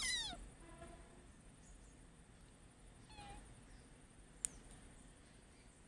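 A cat meowing: one call falling in pitch at the start, then fainter meows about a second in and about three seconds in. A single sharp click about four and a half seconds in.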